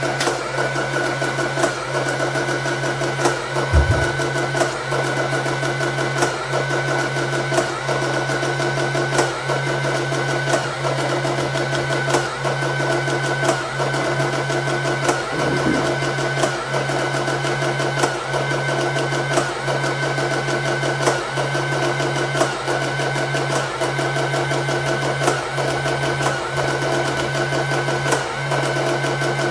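Sharp XE-A107 cash register's built-in receipt printer running continuously as it prints a programming printout, a steady motor whirr with short regular breaks a little more than once a second between lines.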